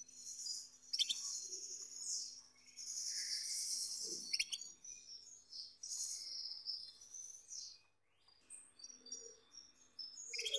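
Male Gloster canary singing: a fast, high trilling song in long phrases, breaking off briefly about eight seconds in before short chirps start again. This is the excited courtship song a male sings to stimulate the female.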